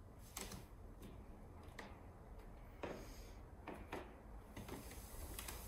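Quiet room with a few faint, scattered soft taps and rustles from a barefoot person moving on a wooden floor, and a soft breath-like hiss near the end.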